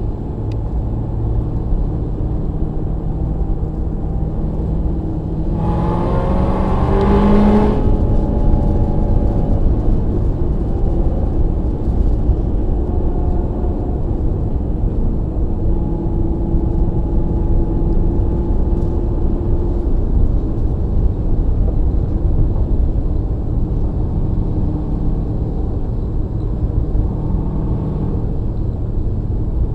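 A car driving at highway speed: a steady low rumble of engine and road noise. About six seconds in, an engine revs up, rising in pitch for about two seconds before it settles back to cruising.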